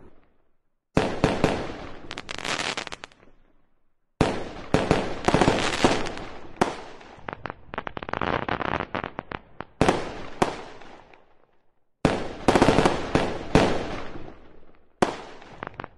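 Aerial fireworks going off: rapid volleys of bangs and crackling, in several runs of a few seconds each that start abruptly, with short gaps between them.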